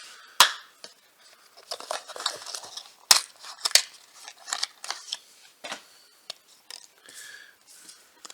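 Blind-box packaging and a small plastic toy figure being handled: crinkling and rustling with several sharp clicks, the loudest about half a second in and twice around the three-second mark.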